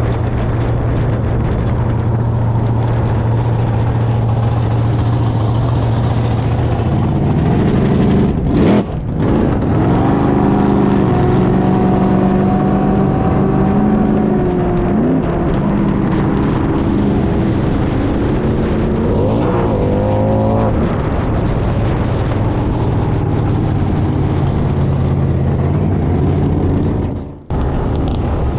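Ford F-truck's engine revving hard under power while the truck slides through a corner with its rear tyres spinning and smoking. The pitch climbs about eight seconds in, holds high, rises again around twenty seconds, and the sound drops out briefly near the end.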